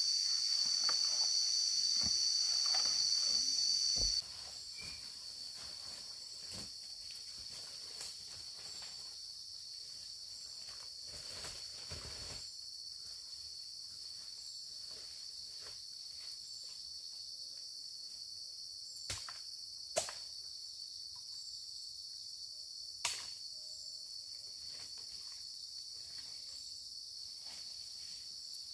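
Steady high-pitched chorus of insects, loud at first and dropping suddenly to a lower level about four seconds in. A few sharp clicks stand out in the second half.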